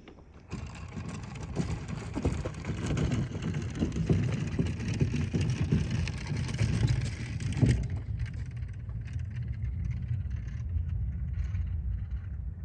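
Wind buffeting the microphone with a low rumble, mixed with small waves lapping on a gravel lakeshore. The higher hiss and crackle thin out about eight seconds in, leaving mostly the low wind rumble.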